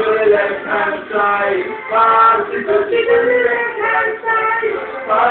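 A man singing into a microphone over backing music, in held, wavering notes.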